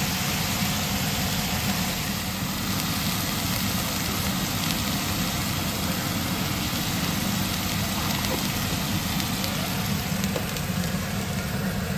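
Sliced pointed gourd (parwal) frying in a pan in a little oil, a steady crackling sizzle, with a steady low hum under it.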